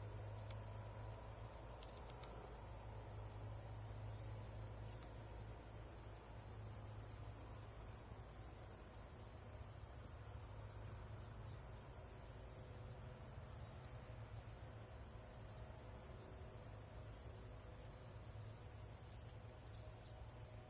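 Insects chirping steadily in an even pulse, about two chirps a second, over a faint low hum.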